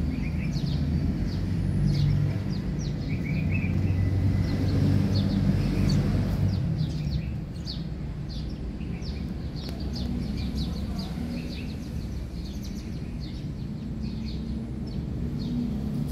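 Small birds chirping in quick repeated notes, over a steady low hum.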